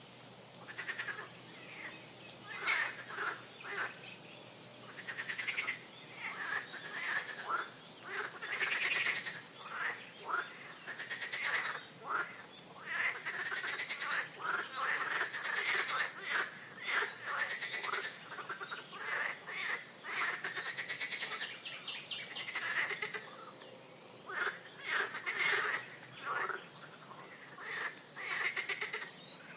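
A chorus of frogs croaking, many calls overlapping, each call a quick run of pulses, coming in irregular bursts with a brief lull about three-quarters of the way through.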